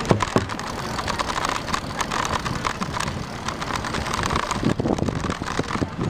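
Wind rushing over the microphone while riding a bicycle along a paved cycle track, with scattered clicks and rattles from the bike and the jolting camera.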